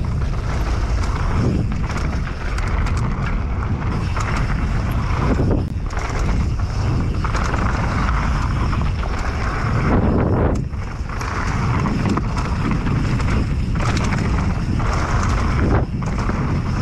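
Specialized Demo downhill mountain bike ridden fast down a dirt trail: wind buffeting the microphone over a steady rumble of tyres on the ground, dipping briefly several times.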